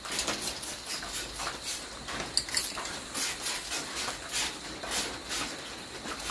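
Short, quick bursts of spray hissing onto the truck's cab panel, about two or three a second, as paint is dabbed on in random spots to build a fake rust patina.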